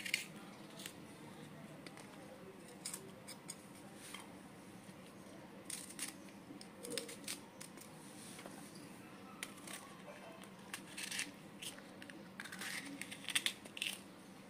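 Kitchen knife slitting and cutting fresh green chillies by hand as their seeds are scraped out, giving faint irregular crisp snaps and clicks, with cut pieces dropping into a stainless-steel bowl. The sharpest cluster of clicks comes near the end.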